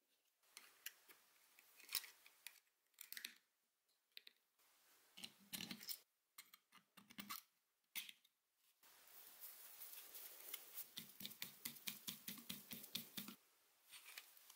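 Gloved hands handling the parts of a disassembled electric drill, its plastic housing and metal motor parts, with scattered small clicks and knocks. From about nine seconds in, a quick run of small rattling clicks lasts a few seconds as a part is worked back and forth.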